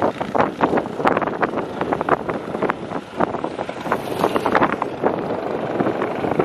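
Farm tractor's diesel engine running under load as it hauls a heavily loaded sugarcane trolley past, in uneven pulses.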